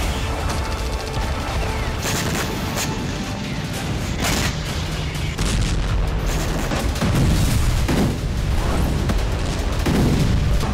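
Background music mixed with explosions: several sudden booms and bangs over a heavy low rumble.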